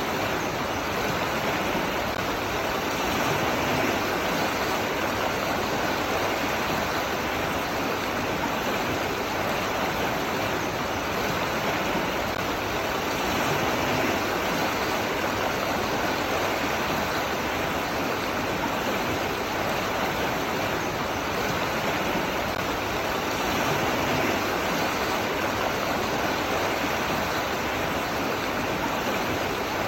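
Flowing water rushing steadily, an even, unbroken wash with no distinct splashes or changes.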